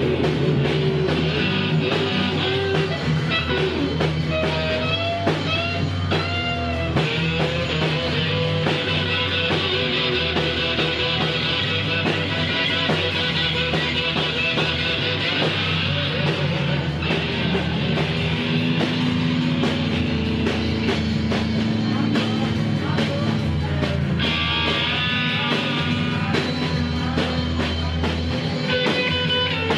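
A rock band playing live: an electric guitar plays sliding, bending notes over a steady low bass.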